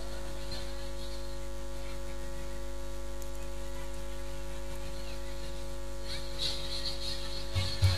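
Steady electrical mains hum with several steady overtones, unchanging throughout, with faint scuffing noises and a couple of low thumps near the end.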